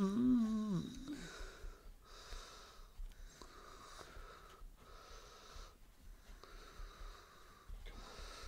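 A short hummed vocal sound, then a person's breathing close to the microphone, one noisy breath about every second or so.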